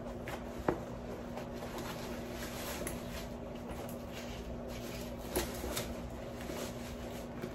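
Faint rustling and handling of a white cloth dust bag as a handbag is drawn out of it, with two soft knocks, over a steady low hum.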